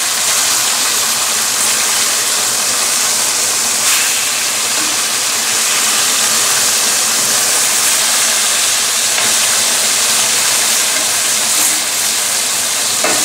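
Pounded, floured boneless chicken thighs frying in hot oil over a high flame, with a loud, steady sizzle and the kitchen exhaust fan running.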